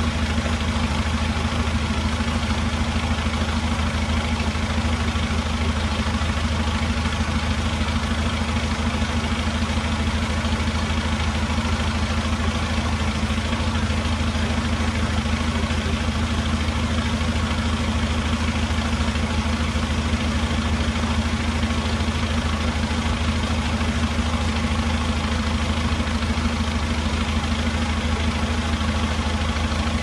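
An engine idling steadily, a constant low hum with a second, higher tone above it and no change in level.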